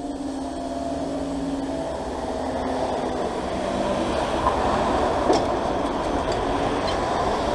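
Road traffic moving off over a reopened level crossing: car engines and tyres, a rumble that slowly builds, with one short click about five seconds in.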